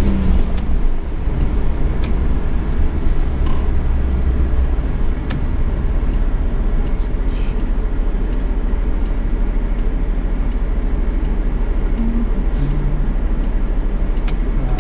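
Cab interior of a 1985 Suzuki Every kei van: the small 550cc engine's low, steady drone with road noise, as heard from the driver's seat. About five seconds in it eases to a lower, steadier rumble as the van slows and waits at an intersection. A few faint clicks and knocks come from the cab.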